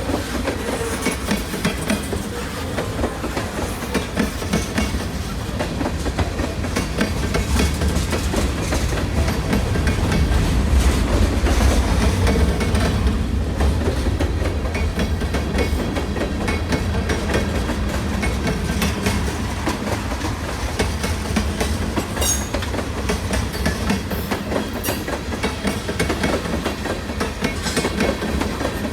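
Train cars rolling past, wheels clicking steadily over the rail joints with a continuous low rumble.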